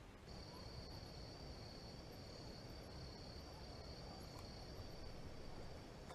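Night insect, a cricket-like trill, giving a steady high-pitched call that starts just after the beginning and holds unbroken, over a faint low background rumble.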